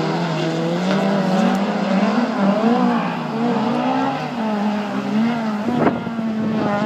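Several folkrace cars' engines revving up and down as they race round a dirt track, their pitches rising and falling against one another. A sharp crack about six seconds in.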